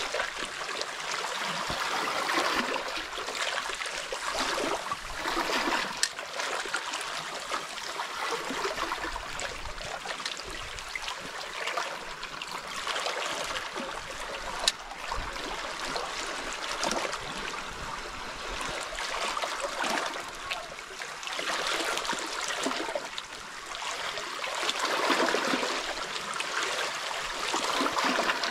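Small waves of calm seawater lapping and trickling among shoreline rocks, swelling and ebbing every few seconds. A single sharp click sounds about halfway through.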